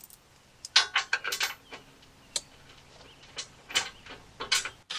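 Irregular metal clinks and knocks of bolts and a steel skid-plate bracket being handled and fitted by hand, in clusters about a second in and again near the end.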